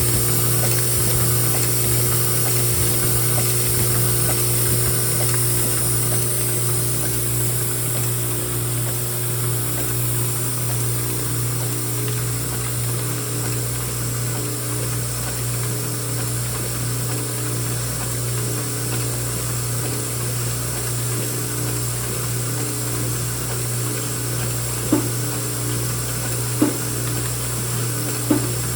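Lead-cap welding machine for resistor leads running: a steady machine hum that pulses about once a second. Near the end come three sharp snaps about a second and a half apart.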